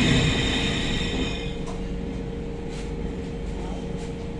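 SMRT C651 train decelerating: a high metallic ringing, the fault sound that seems as though the train may fall apart, fades out about a second and a half in, leaving a low rumble and a steady hum as the train slows.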